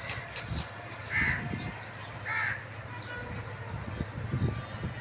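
A crow cawing twice, about a second apart, over a steady low outdoor rumble.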